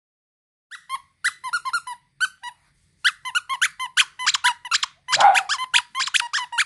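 Squeaker inside a plush dog toy squeezed over and over, giving runs of short high squeaks that start about a second in and come thick and fast, loudest about five seconds in.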